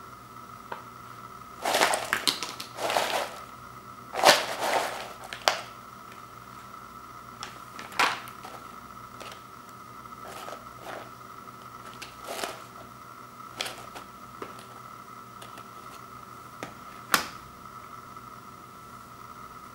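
Crinkly rustling bursts as a snack bag and a plastic bowl of tortilla chips are handled, the chips shifting and crackling against each other, then scattered single light clicks and taps. A faint steady high whine runs underneath.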